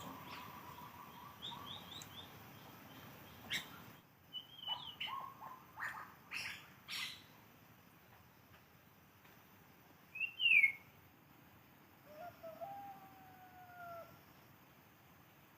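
Birds calling in scattered short chirps and whistles, with a few sharp clicks. The loudest call, about ten seconds in, is a quick whistle falling in pitch. A few longer, lower slurred whistles follow it.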